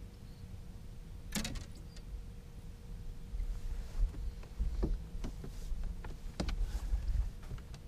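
Low rumble of wind on the microphone aboard a bass boat, with a few sharp knocks and clatters as a bass is landed and handled on the boat: a loud one about a second and a half in and several more in the second half.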